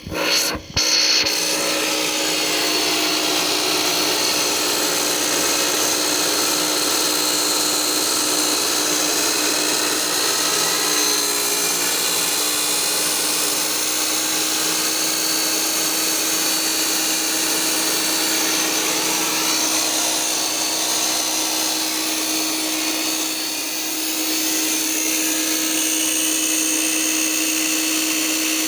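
Electric power tool started with two short blips, then running steadily at full speed with a constant motor whine, dipping briefly once near the end.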